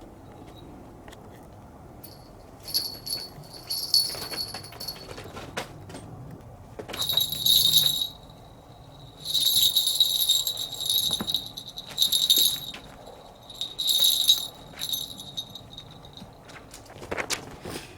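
A small bell jingling in repeated short bursts, about six shakes spread over the stretch, each a bright high ringing with scattered light knocks between, as from a bell shaken by a kitten running and playing.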